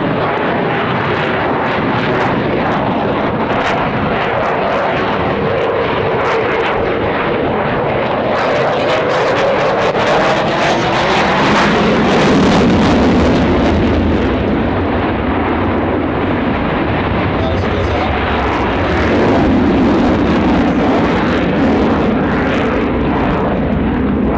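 Eurofighter Typhoon's two EJ200 turbofan jet engines in full reheat (afterburner) on a display pass: a loud, continuous jet noise with a pitch that sweeps through the middle as the aircraft passes. It swells about twelve seconds in and again near twenty.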